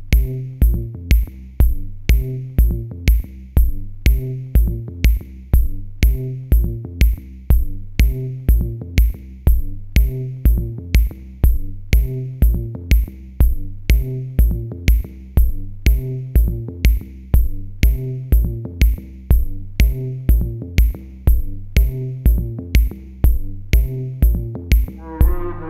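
Electronic background music with a steady drum-machine beat, about two beats a second.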